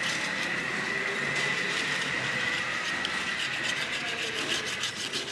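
A small brush scrubbing dust off a TV remote's circuit board in quick, scratchy back-and-forth strokes, with a thin steady high whine underneath.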